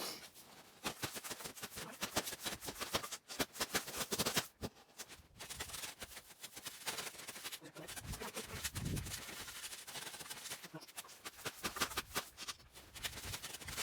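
Irregular crunching, scraping and knocking from hands-on work in deep snow as a log sled is shifted into place, with a couple of low thumps about eight seconds in.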